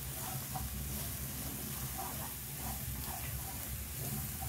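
Minced eel and crushed roasted peanuts stir-frying in an aluminium pan: a steady low sizzle, with small irregular scrapes and taps of a wooden utensil as the mixture is turned over.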